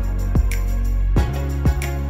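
Background music with a steady beat: a drum hitting about twice a second over sustained bass notes, with light cymbal ticks.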